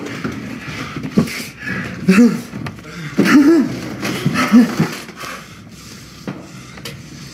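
A man groaning and gasping in pain, with a few short strained cries, and a couple of dull knocks between them.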